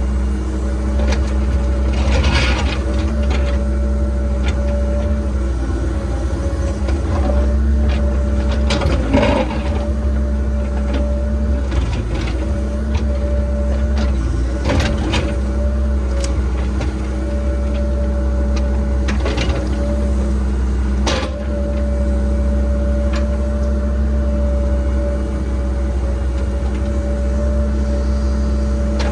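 Cat 306 excavator's diesel engine running steadily under load with a steady whine over it, and several short knocks and scrapes from the bucket digging dirt and rock.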